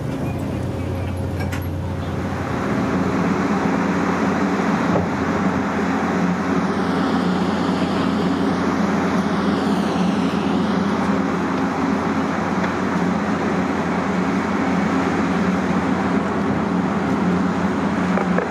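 Boat engines running steadily: a low hum for the first two seconds, then louder engine noise, with a faint whine that rises and falls in pitch in the middle.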